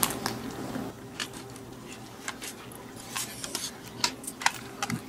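AA batteries and the plastic battery holder of a LEGO Mindstorms EV3 brick being handled as the batteries are loaded: scattered light clicks and taps at irregular intervals.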